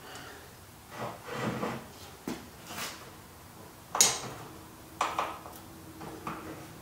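Knocks and short scrapes of a wooden block and metal jacking gear being set in place on a steel table under a generator's frame. One sharp knock about four seconds in is the loudest.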